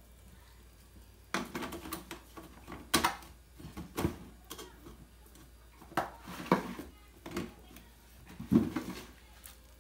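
Hard plastic parts of a rice dispenser knocking and clattering as they are handled and fitted together: about half a dozen sharp knocks a second or two apart.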